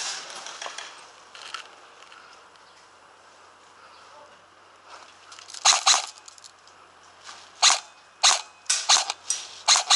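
Airsoft guns firing single sharp shots, the first cluster about halfway through, then shots coming roughly once or twice a second to the end.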